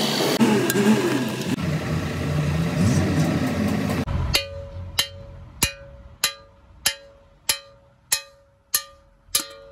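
Nine evenly spaced hammer blows on a steel drift, about one and a half a second, each ringing briefly with a metallic tone. The drift is set in a bearing seat of a truck differential carrier housing. For the first four seconds, before the blows begin, there is a steady background din.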